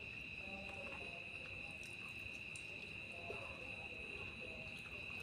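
Crickets chirring in a steady, unbroken high-pitched drone, with a few faint crackles as crisp puffed puri bread is handled.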